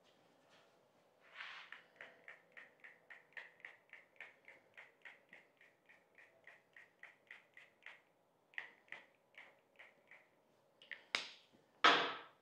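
Quick, regular strokes, about four a second, as reconditioning oil is worked onto a saw table, ending in two louder strokes near the end.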